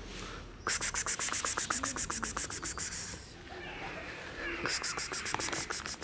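A person calling a kitten with fast, repeated "pspsps" hissing, in two runs about a second apart.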